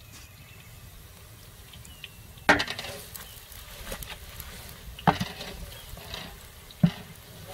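Long wooden spatula stirring and scraping fried onions, garlic and whole spices around a large metal degchi, knocking sharply against the pot three times, the first about two and a half seconds in, over a light sizzle of hot oil.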